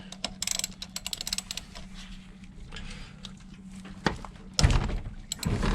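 Ratchet wrench clicking in quick runs as it is set on a bolt on the moped's side, with a heavy thump about four and a half seconds in.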